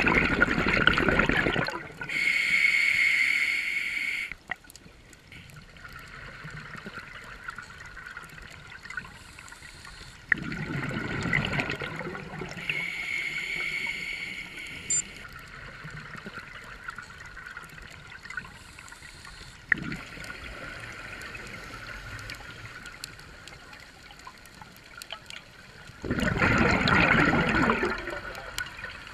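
Scuba diver breathing through a regulator underwater: three bubbling exhalations about ten seconds apart, the first two each followed by a hissing inhalation with a faint whistle-like tone.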